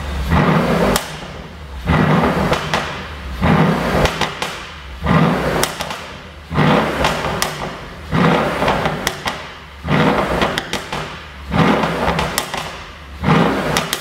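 Mercedes-AMG S63 4MATIC twin-turbo V8 revved in short blips about every one and a half seconds through a tuned 'POP' exhaust. Each rev falls away into sharp pops and crackles on the overrun.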